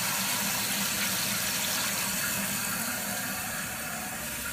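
Toilet tank refilling through a newly installed fill valve after the water supply is turned back on: a steady hiss of water running into the tank, easing a little after about three seconds.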